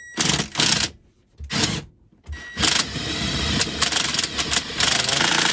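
Cordless drill run in three short bursts, then steadily for about three and a half seconds, driving a screw down through a thick bus floor to reach the steel beneath for a ground connection.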